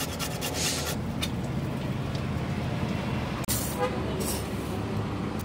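Steady rumble of road traffic around a street-food stall, with rapid scraping strokes of carrot being grated on a steel hand grater in the first second or so.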